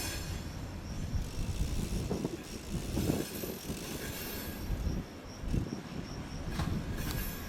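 A train rolling slowly on the rails: a low rumble with brief high metallic wheel squeals near the start and again near the end.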